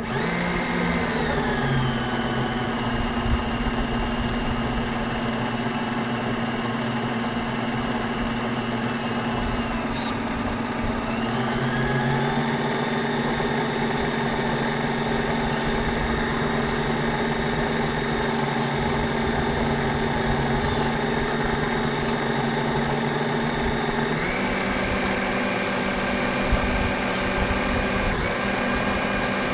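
RC model boat's electric drive motor running with a steady whine. The pitch dips about a second in, rises again around eleven seconds in, and steps up once more a few seconds before the end, following the throttle.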